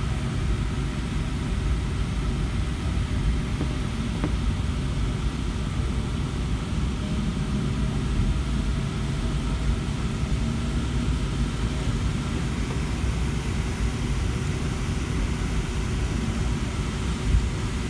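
Boeing 757-200 taxiing, heard from inside the passenger cabin: a steady low rumble of the engines and rolling on the taxiway, with a faint hum. A brief knock near the end.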